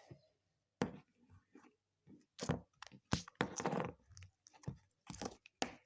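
Homemade slime, freshly softened in a microwave, being squished and pulled by hand close to the microphone: an irregular series of short sticky clicks with brief gaps between them.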